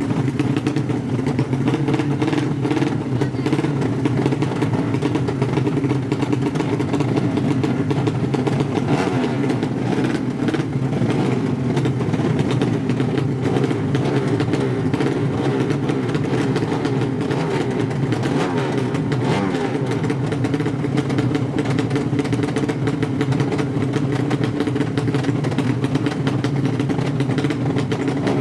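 Horizontal-cylinder ('sleep engine') 200 cc drag-race motorcycle engines running loudly and steadily at the start area.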